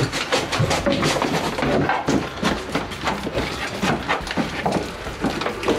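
A quick, irregular series of knocks and clatters, several a second.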